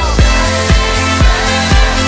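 Background music with a steady kick-drum beat, about two beats a second, over a deep bass line.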